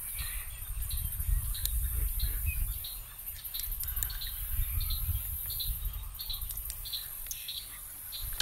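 Outdoor ambience: a bird chirping in short notes about twice a second over a steady high-pitched insect drone, with a low rumble underneath.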